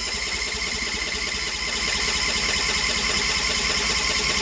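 A 20 hp Briggs & Stratton V-twin engine being cranked over on its electric starter in a cold winter start. It cranks steadily and has not yet caught.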